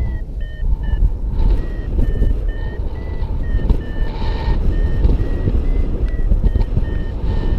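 Paragliding variometer beeping in short, evenly repeated high tones, about two a second, with the pitch stepping slightly up and down: the vario's climb tone, signalling rising air. Heavy wind rush on the microphone runs under it and is the loudest sound.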